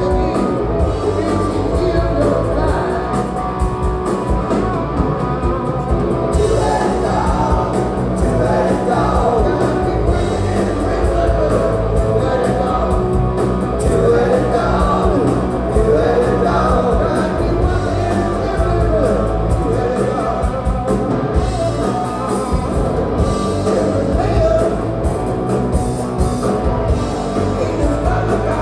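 Rock band playing live: a man singing into a microphone over electric guitar and drums, heard from the audience in a hall.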